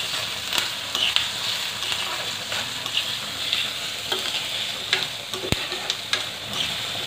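Chopped onion, garlic and capsicum sizzling in ghee in a kadhai while being stirred, with scrapes and irregular clicks of the stirring utensil against the pan and one sharper knock about five and a half seconds in.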